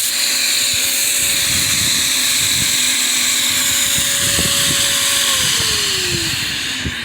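Honeybees buzzing loudly close to the microphone from an open, agitated hive. A steady buzz holds one pitch, then slides lower about five seconds in, over a dense hiss of many wings.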